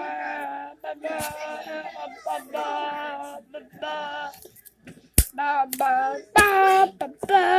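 A child singing long held notes without clear words, with a few sharp clicks or knocks in between.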